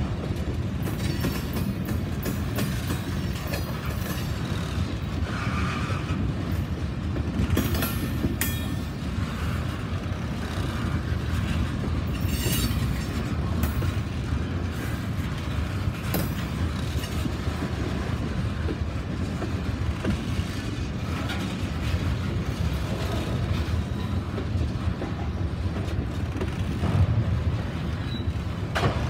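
Freight train of covered hopper cars rolling steadily past, a continuous low rumble with clicking of wheels over rail joints.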